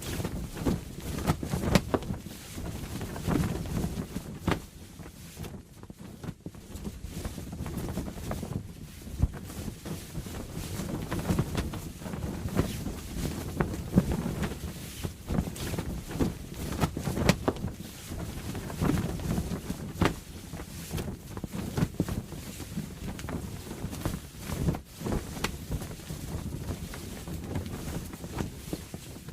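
A sail flapping in strong wind, snapping sharply at irregular moments over a steady low wind rumble.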